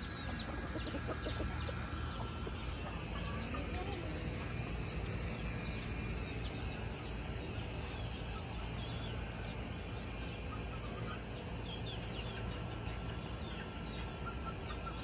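A flock of free-range chickens clucking softly and chirping as they forage, with quick high chirps clustered in the first few seconds, over a steady low hum.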